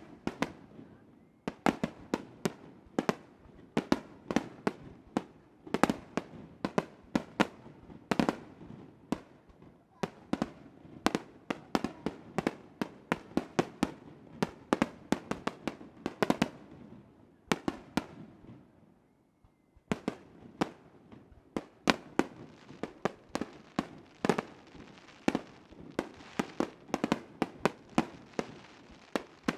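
Fireworks display: a rapid barrage of aerial shell bursts, several sharp bangs a second. There is a brief lull past the middle, then the barrage resumes.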